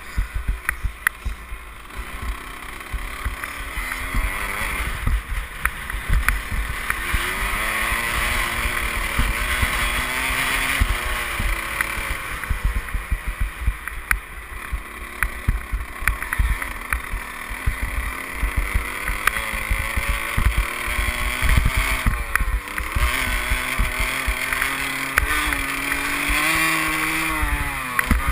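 Dirt bike engine revving up and down over and over as the bike rides around a motocross track, its pitch climbing and dropping through the corners. Heavy wind rumble buffets the helmet-camera microphone.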